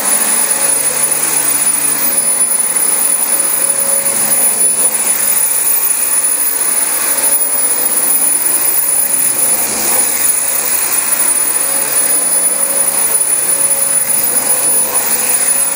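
Dyson DC25 upright vacuum cleaner running steadily over thick carpet: a constant rushing airflow with a high, even motor whine.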